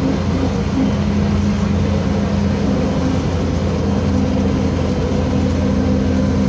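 Engine drone and road noise of a LiAZ 5256.45 city bus, heard from inside the passenger cabin: a steady, unbroken running note.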